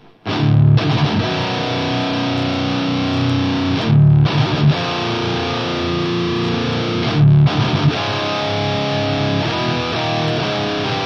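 Distorted electric guitar played through a Teensy 4.0 DSP pedal's impulse-response cabinet simulator, which makes it sound like a miked speaker cabinet. Sustained chords broken twice by short stops, each followed by heavy low chugs.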